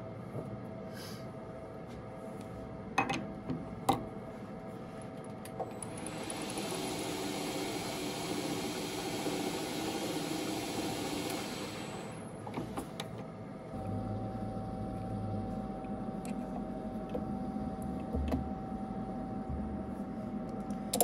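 Small metal lathe running with a nickel rod held in a collet. From about six to twelve seconds in, a steady hiss as the tool bit cuts the rod. A few sharp knocks come a few seconds before the cut.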